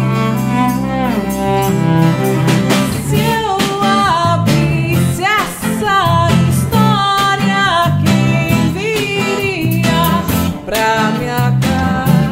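Live band playing an instrumental passage in a Brazilian MPB / alternative rock song: drums, electric bass, steel-string acoustic guitar and cello, with a gliding melody line on top.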